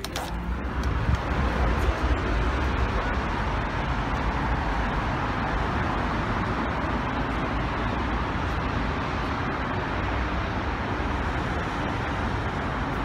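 Steady road traffic noise from a busy city street, with the low rumble of passing cars and buses.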